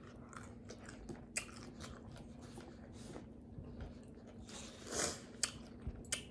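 Close-miked eating of tacos: faint chewing with scattered crunches and mouth clicks, and a louder crunching bite about five seconds in.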